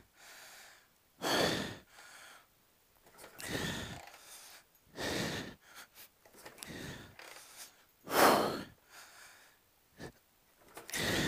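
A custom Harley-Davidson chopper's V-twin being kick-started about six times, each kick a short rush of sound with a falling tone as the engine turns over and does not catch. The rider's hard breathing comes in with the kicks.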